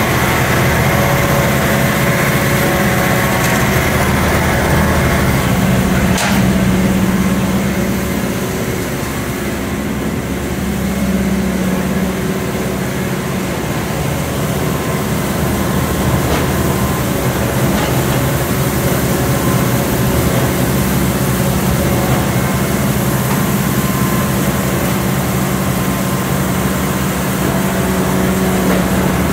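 Kuhn Primor 3560 straw bedder running steadily off the tractor, its chopping rotor and fan blowing straw out of the spout, over the tractor's engine. One short knock about six seconds in.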